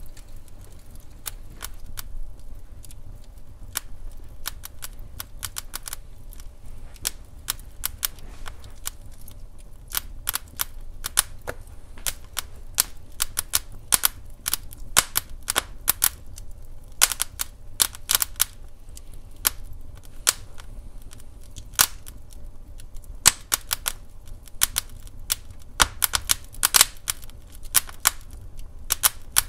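Wood fire crackling in a fireplace: irregular sharp pops and snaps, some in quick clusters, over a steady low rumble of the burning logs.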